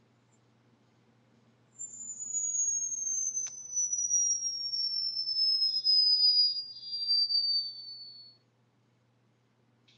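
A ringtone made of a single high, pure electronic tone that glides slowly and steadily downward in pitch for about six and a half seconds, starting about two seconds in. There is a faint click partway through.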